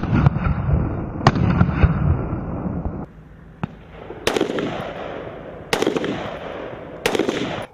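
Rifle gunfire on a firing range. For about three seconds several rifles fire at once in quick overlapping shots. Then comes one faint shot and three loud single shots about a second and a half apart, each followed by a long echoing decay.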